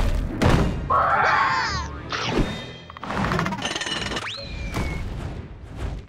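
Cartoon music score with a run of sound effects: several thuds and thumps, a shrill cry about a second in, and a whistle that shoots up and then slides down about four seconds in.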